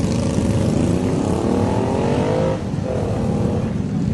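Several motorcycle engines running, with one revving up twice in a rising pitch: the first rev climbs for about a second and a half and drops off suddenly, the second follows straight after.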